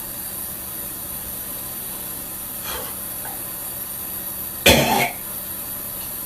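A person coughing once, loudly and briefly, about three-quarters of the way through, over a steady hiss.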